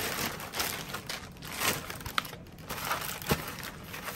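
Paper wrapping rustling and crinkling in irregular bursts, with a few sharper crackles, as a pair of shoes is unwrapped by hand.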